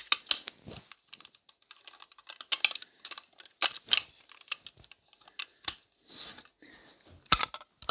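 Irregular clicks and taps of plastic LEGO Duplo pieces and their box being handled, with a sharper double knock near the end.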